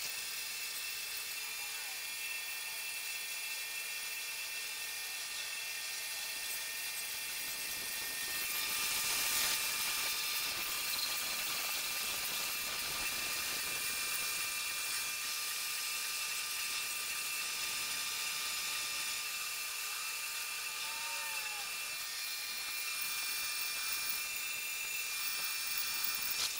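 Hydmech horizontal bandsaw with an MK Morse carbide-tipped blade cutting through heavy-wall steel mechanical tubing: a steady whine and hiss, swelling slightly about nine seconds in. The blade is cutting cleanly.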